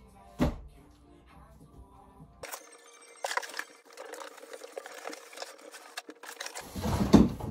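Books being handled and set down: a sharp thump about half a second in, rustling and light clatter in the middle, and a heavier knock near the end, the loudest sound.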